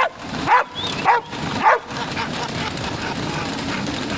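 Bulldog barking four times in quick succession, about half a second apart, each bark sweeping up in pitch, while trotting on a dog treadmill; the barking stops about two seconds in, leaving steady background noise.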